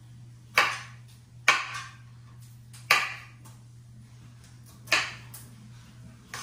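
Kitchen knife chopping broccoli on a cutting board: four sharp knocks at uneven intervals, each one trailing off briefly.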